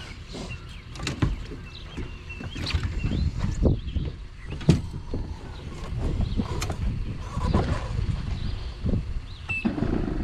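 Scattered knocks and clanks of a boat being hooked up and loaded onto its trailer, over a low rumble. Near the end a motor starts and runs steadily.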